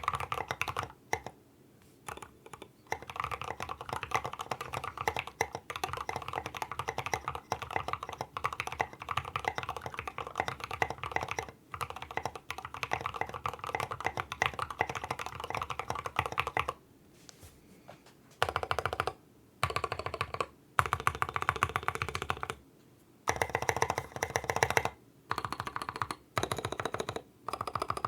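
KBD75v2 mechanical keyboard with Gateron Milky Yellow linear switches lubed with Krytox 205g0, an aluminium plate and SA keycaps, typed on fast and steadily for a stretch of about fourteen seconds, then in shorter bursts broken by brief pauses. The uploader calls its sound thock.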